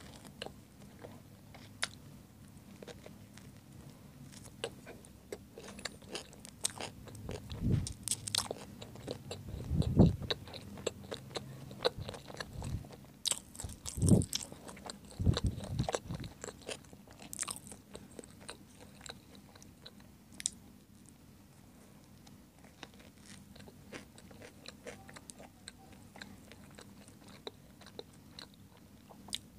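Close-miked biting and chewing of a hot dog sandwich in a soft bun, with many small mouth clicks. A few louder low thumps come around the middle.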